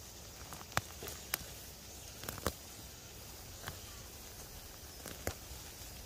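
A hand moving through low leafy plants: about half a dozen short, sharp snaps and rustles, scattered over a faint steady hiss.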